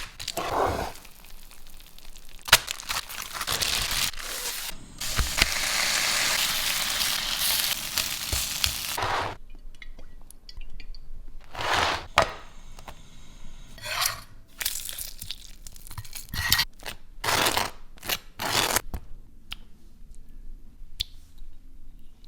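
Kitchen preparation sounds: a run of crunches, scrapes and clinks from handling and cutting food and utensils, with a steady hiss for several seconds near the start.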